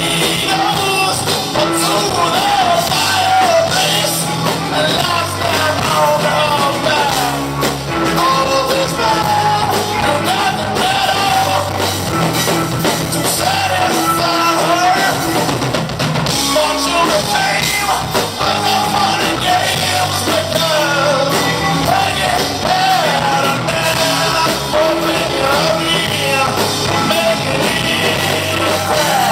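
Live rock band playing, with drum kit, guitar and a voice singing over it.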